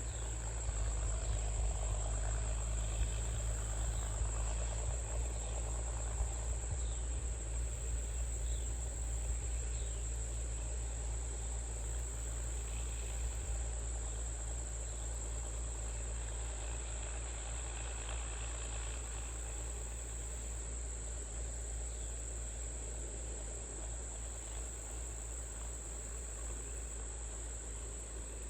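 Field crickets trilling in a high, steady chorus over a low, steady rumble.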